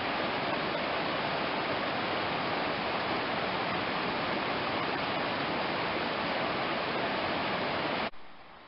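Whitewater rapids of a rocky river rushing over boulders, a steady rush that cuts off abruptly near the end.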